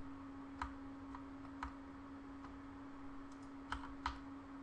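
Scattered sharp clicks from a computer mouse and keyboard, over a steady low hum.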